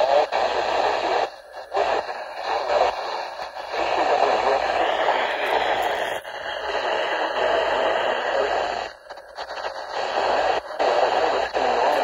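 Midland weather alert radio's speaker giving out hissy static from a weak weather-band signal, dropping out briefly a few times.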